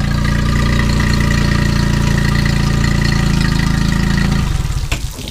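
Yamaha 25 hp two-cylinder four-stroke outboard idling steadily in neutral on flushing muffs, its newly replaced water pump pumping cooling water. The engine is shut off about four and a half seconds in, with a couple of short knocks as it stops, leaving the sound of running water.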